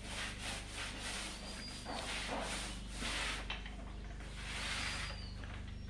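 Paint roller loaded with green wall paint rolled over a plastered wall, a soft swish with each stroke, repeated every second or so.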